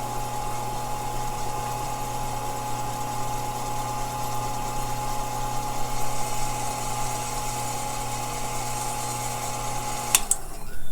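Faceting machine running steadily, its motor humming, while a gemstone's table facet is pressed hard by hand against the spinning lap to polish out a scratch. The hum cuts off sharply with a click near the end.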